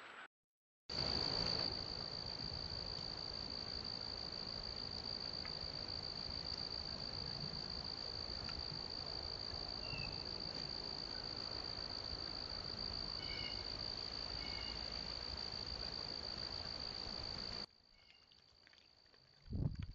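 Insects singing a continuous, unbroken high-pitched trill over a steady hiss, with a few faint short chirps a little past the middle. The sound cuts off suddenly near the end.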